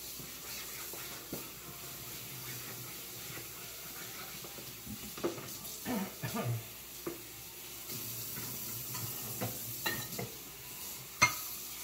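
Meatballs frying in a pan with a steady sizzle, broken by scattered knocks and scrapes of a utensil against the pan; the sharpest knock comes near the end.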